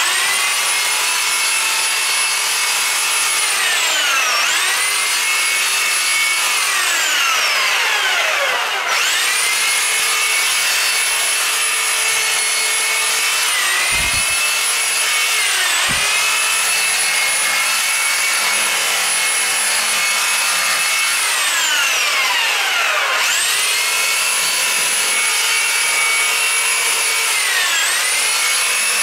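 Corded reciprocating saw running continuously as it cuts through a Christmas fir's trunk and branches. Its motor whine sags in pitch several times as the blade bites into the wood, then climbs back to full speed, with a couple of low thumps about halfway through.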